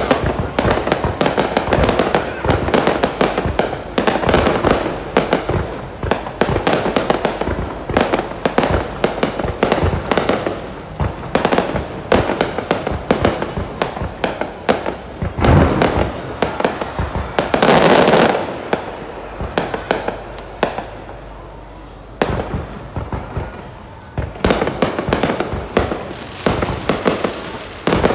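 Fireworks display: a dense run of bangs and crackling pops, with a loud burst about two-thirds of the way through, a short lull, and then more bangs.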